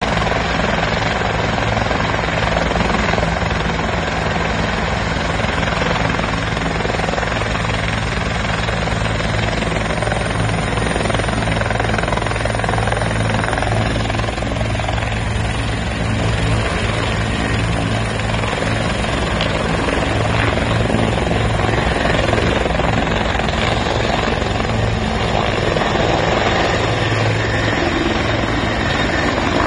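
Bell 412EP twin-turbine helicopter taking off: loud, steady rotor and turbine noise that holds its level throughout.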